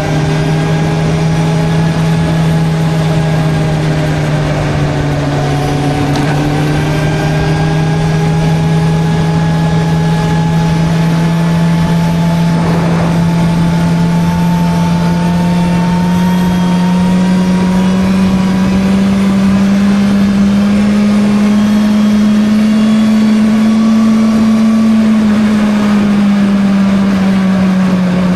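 Suzuki GSR 600's inline-four engine pulling at a steady cruise. Its pitch creeps slowly upward through the second half and eases back a little near the end, over a steady rush of wind noise.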